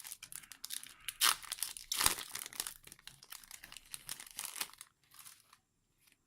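Foil Yu-Gi-Oh booster pack being torn open and crinkled, with two louder rips a little after one and two seconds in; the crackling stops about a second before the end.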